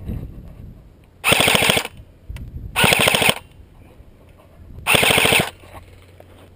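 Airsoft gun firing three short full-auto bursts of rapid clicks, each about half a second long and a second or two apart.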